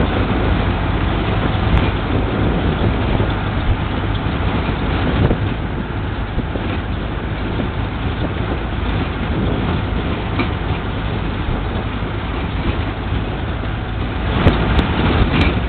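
Pickup truck driving over a brick-paved street, heard from its open bed: a steady rumble of engine and tyres, with a few sharp knocks near the end.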